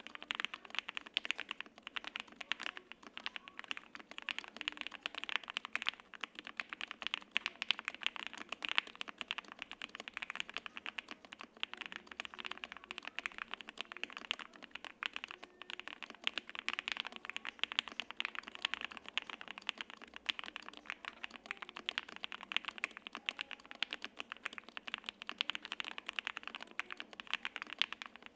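Continuous fast typing on a custom 75% gasket-mount mechanical keyboard (Jelly Epoch SE) with lubed Lavender linear switches on a polycarbonate plate and GMK double-shot ABS keycaps: a dense, steady stream of key clacks.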